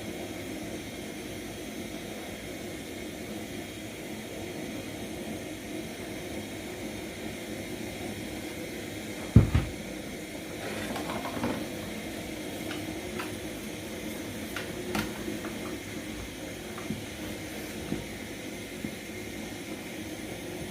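Steady hiss of a pot of water boiling on a gas stove, with one loud knock about nine seconds in and scattered light clicks and knocks of cookware after it.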